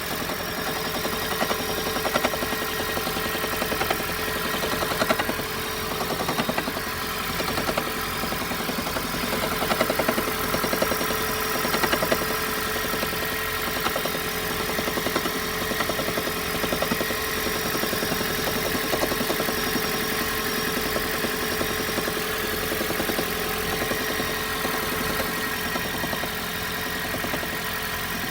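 Toyota Prius engine running with a steady, fast rattle from around the engine: an abnormal noise the owner is showing as a fault.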